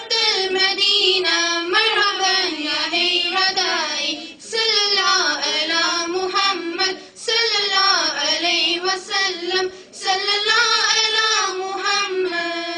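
A child singing a nasheed solo: long, wavering, ornamented held notes in phrases that break briefly about every three seconds.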